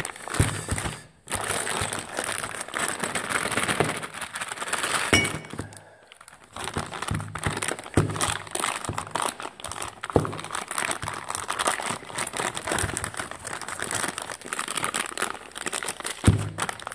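Plastic parts bag crinkling and rustling as it is opened and handled, with a few sharp knocks of hard parts being set down.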